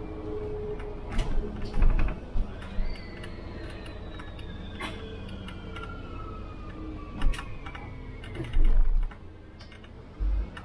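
Inside a city bus on the move: rattles and knocks from the cab, with a few heavier thumps and a mechanical whine that falls slowly in pitch over about five seconds.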